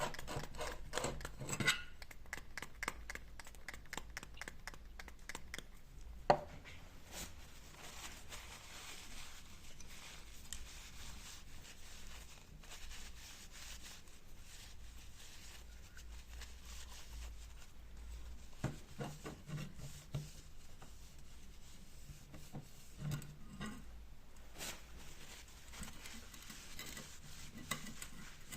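Small metal bicycle-hub parts and tools being handled: scattered clinks, taps and rubbing, with a quick run of ticks at the start, a sharp knock about six seconds in, and bursts of clatter later on.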